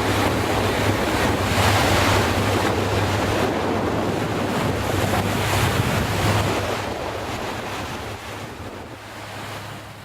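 Fishing boat under way: a steady low engine hum under strong wind buffeting the microphone and water rushing past the hull. It fades out over the last few seconds.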